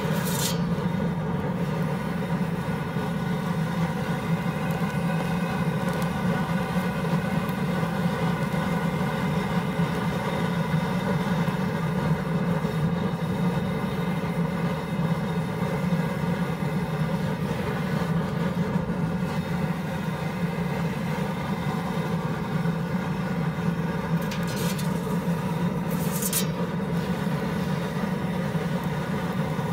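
Blackstone propane pizza oven running with a steady rumble throughout. Brief swishes come just after the start and twice near the end.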